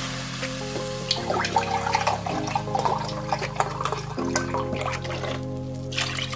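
Chicken broth being poured into a pan of crushed tomatoes and fried onion, with liquid splashing and trickling, over background music of steady held chords.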